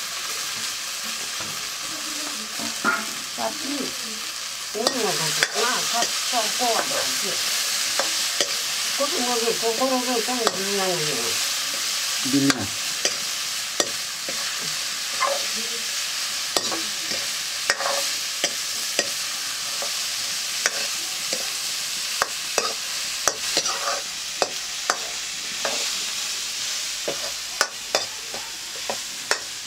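Chopped vegetables sizzling in oil in an iron wok over a wood fire, stirred with a metal ladle that scrapes and clicks against the pan many times over a steady hiss.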